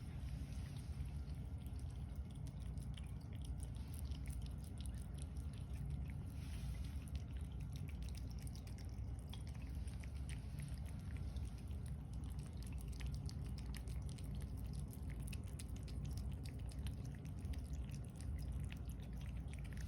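Cat eating from its bowl: many small sharp clicks and ticks, thickest in the second half, over a steady low rumble.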